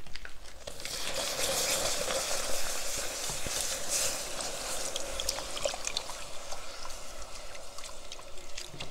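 Milk poured into a saucepan of hot, bubbling butter-and-flour roux, hissing and sizzling as it hits the hot pan, starting about a second in. A wire whisk clicks against the pan as the milk is stirred in.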